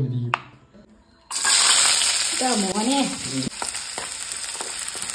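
Chopped shallots sizzling in hot oil in a non-stick pan while a wooden spatula stirs them. The sizzle starts suddenly about a second in and then holds steady, with a few light taps from the spatula.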